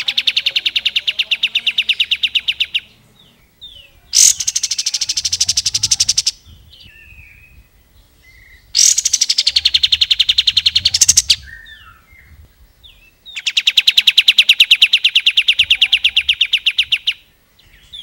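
Kapas tembak bulbul singing in its rapid rattling 'ngebren' style: four long phrases of fast, evenly repeated notes, each two to four seconds long, with softer short chirps between them.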